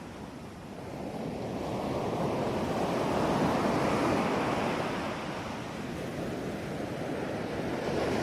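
Ocean waves washing in, a steady rush of surf that swells up to a peak a few seconds in and slowly eases back.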